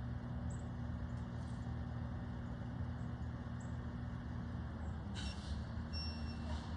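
Garbage truck engine running steadily, with a brief hiss about five seconds in that lasts over a second.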